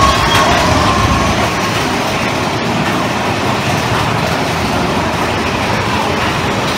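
Big Thunder Mountain Railroad mine-train roller coaster cars rumbling and clattering steadily along the track.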